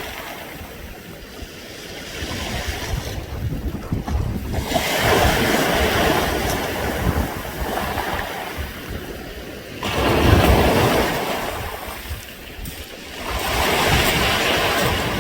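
Waves washing up a beach of smooth round pebbles, the stones rattling and clinking as the water runs up and drains back. The sound swells and fades in surges a few seconds apart.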